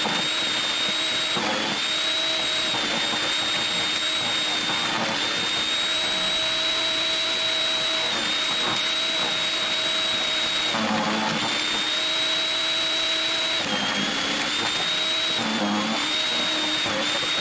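Portland electric wood chipper running with a steady high whine, the pitch dipping briefly several times as the motor takes the load of branches being chewed.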